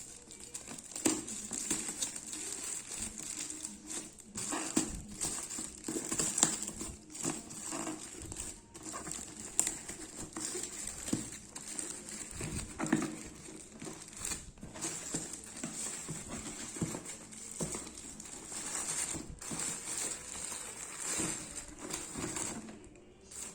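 Packaging being handled during a shoe unboxing: an irregular, continuous run of crinkling and rustling with scattered light clicks and taps.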